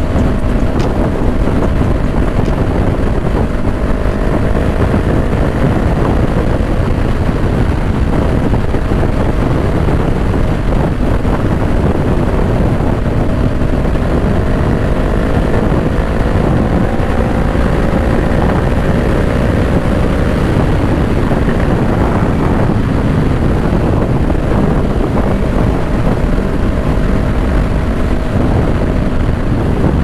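Honda CBR500R's parallel-twin engine running at steady highway cruising speed, its note drifting slightly up and down, under heavy wind noise on the microphone.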